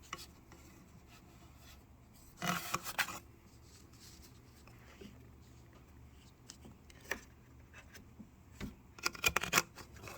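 Intermittent handling noises as a drain hose is worked onto the fitting at the back of a portable air conditioner: a stretch of rubbing and rustling about two and a half seconds in, a sharp click around seven seconds, a low thump, then a quick cluster of clicks and rustles near the end.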